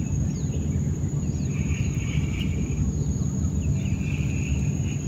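Riverside jungle ambience under a low, steady rumble: a constant high insect drone, two buzzing insect calls each lasting about a second, and a few short falling chirps.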